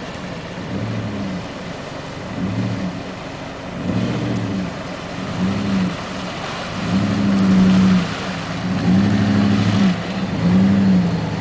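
First-generation Jeep Grand Cherokee engine revving in repeated surges as it drives through a deep mud track, its note rising and falling about seven times. It grows louder as the vehicle comes close.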